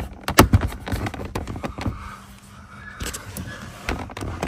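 Hard plastic interior trim panel being handled and pushed into its slots beside the pedals, giving a run of sharp clicks and knocks, several in the first second and a louder one near the end.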